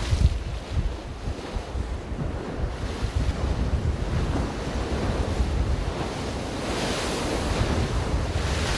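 Lake waves washing on the shore under strong wind that buffets the microphone with a steady low rumble. A louder wash of hiss swells about seven seconds in.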